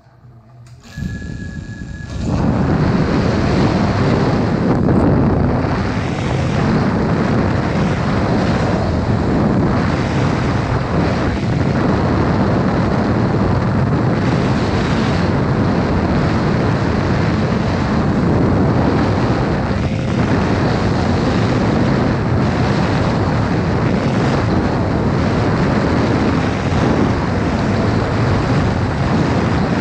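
Four-inch ducted drone's motors and propellers spooling up about two seconds in, then a loud, steady whirring rush as it flies, picked up by the camera riding on the drone. A short steady tone sounds about a second in, just before the motors start.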